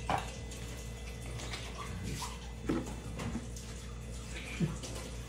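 Water running from a kitchen sink tap while dishes are washed, a steady rush with a few light knocks and clatters.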